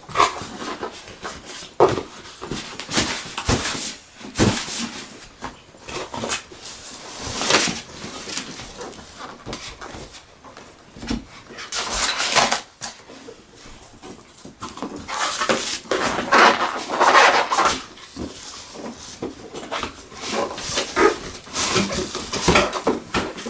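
Packaging being handled while a diecast crane model is unpacked: irregular bursts of rustling and scraping from the box and its packing material, some loud, with short pauses between.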